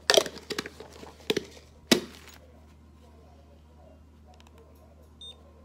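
Clear plastic jar being handled as a used test strip goes in: a few sharp plastic knocks and clicks in the first two seconds, the loudest about two seconds in, then only faint handling ticks.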